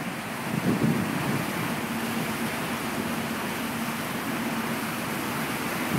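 Ferry running at speed, heard from the stern: a steady engine hum under the rush of the churning wake, with wind on the microphone.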